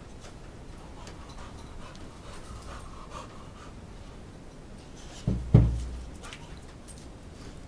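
Pit bull panting while playing, with two heavy thumps in quick succession about five and a half seconds in.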